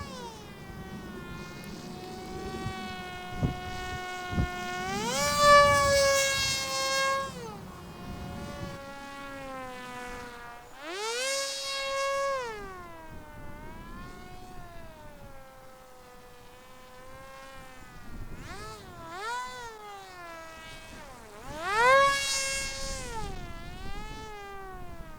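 Electric motor and propeller of a ZOHD Orbit Neon RC flying wing in flight, a buzzing whine that rises and falls in pitch again and again as the throttle changes and the plane passes. It is loudest in surges about six, eleven and twenty-two seconds in, with two short knocks about four seconds in.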